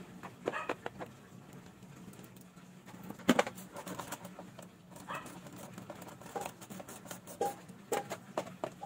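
Scattered clicks and taps of a hand tool against the screws and plastic side fairing of a motorcycle as the screws are taken out, with one louder knock about three seconds in.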